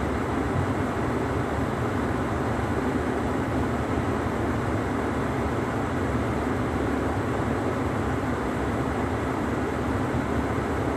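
Steady rumble and hiss inside a truck cab as the truck drives slowly on a snow-covered road: engine and road noise, with no change through the stretch.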